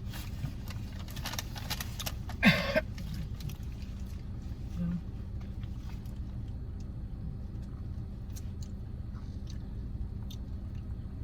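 A steady low hum with a faint constant tone in it. There are light clicks in the first two seconds and one short, loud noise about two and a half seconds in.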